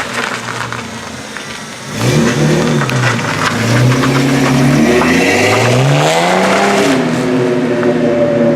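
Car engine and freshly welded exhaust pulling under load at a slow pace. The revs climb about two seconds in and level off, then climb again and drop back near seven seconds before holding steady.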